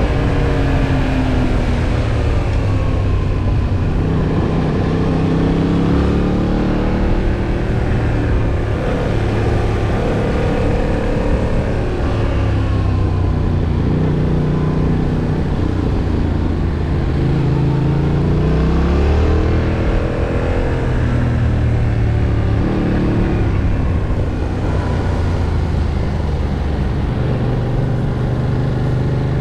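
Yamaha MT-07's 689 cc parallel-twin engine being ridden hard, its pitch climbing and dropping back over and over as it accelerates and shifts gears.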